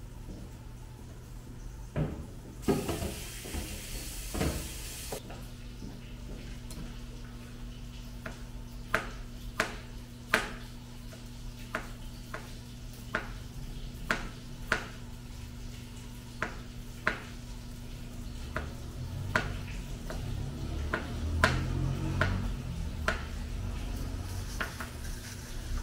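Knife chopping vegetables on a plastic cutting board: sharp, irregular chops about one a second over a steady low hum. A few seconds of hiss come about three seconds in.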